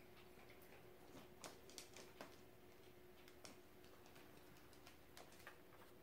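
Faint, irregular clicks from a corgi moving about at its food bowl on a vinyl floor, about half a dozen spread through, over a faint steady hum.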